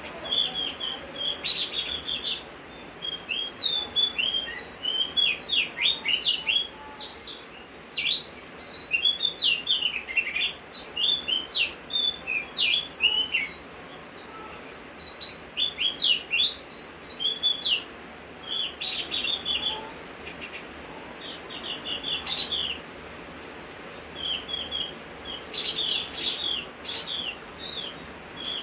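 Javan grey-throated white-eye (opior jawa) singing vigorously: quick bursts of high chirps and short falling notes in clustered phrases with brief pauses between them, over a steady hiss of rain.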